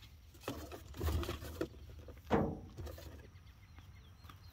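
Handling noises as a small item is picked up off a truck's tailgate and turned over in the hands, with one sharper knock about two and a half seconds in. Faint bird chirps in the background.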